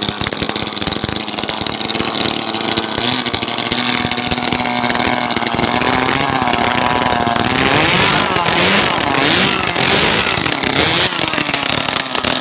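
Small brush-cutter engine running with its speed wavering up and down while it spins a 6 cm four-blade propeller in river water. The propeller churns and splashes the water, most heavily in the second half.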